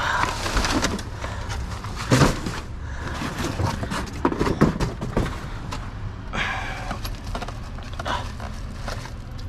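Rummaging through a pile of discarded junk: irregular knocks, clatter and rustling as items are shifted and picked through, over a steady low rumble.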